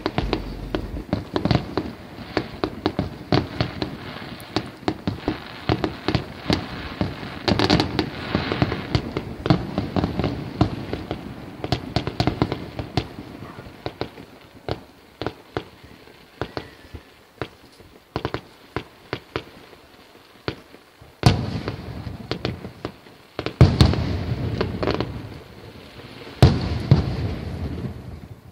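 Aerial fireworks going off: a rapid, dense string of sharp bangs and crackles, thinning out about halfway through, then a few very loud booms with long rumbling echoes near the end.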